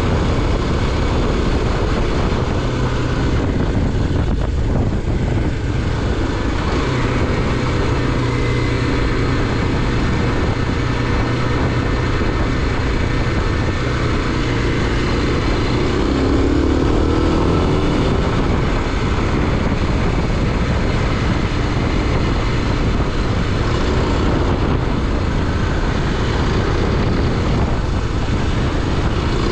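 A motor vehicle under way: steady engine and road noise, even and unbroken throughout, with a low hum underneath.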